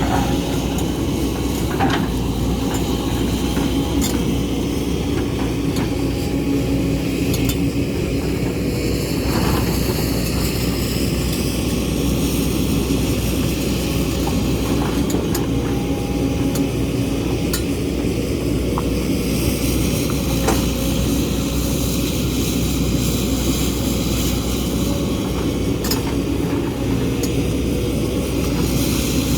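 A JCB excavator's diesel engine running steadily under load while digging rocky ground, with scattered sharp clanks and clinks every few seconds from the bucket striking and scraping rock.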